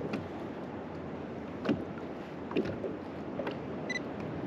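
Water and wind noise around a small fishing boat, with a few light knocks and one short high beep near the end.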